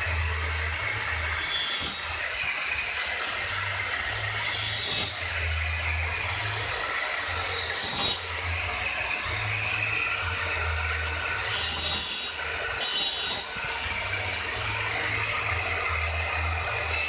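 Handheld circular tile saw (marble cutter) running and grinding through a ceramic floor tile, cutting a circular drain opening, with a harsher high-pitched burst every few seconds as the blade bites into the tile.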